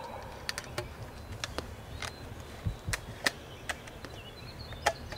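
Footsteps on the forest floor: scattered, irregular sharp snaps and clicks of twigs and dry leaves, with a couple of soft thuds a little before the middle.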